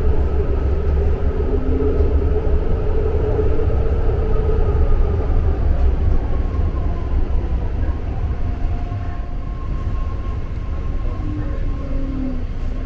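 Heard from inside a moving BART train car: a steady low rumble of wheels on the track, with a thin whine over it. About halfway through, the whine drops a little in pitch and the rumble eases slightly.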